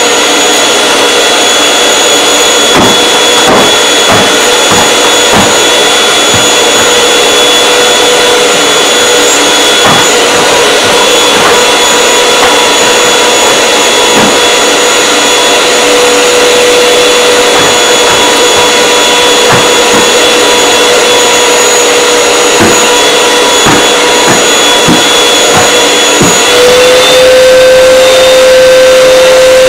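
Canister vacuum cleaner running steadily with a constant whine, with short knocks as the nozzle and hose bump across the carpet. A few seconds before the end its pitch steps up slightly and it gets louder.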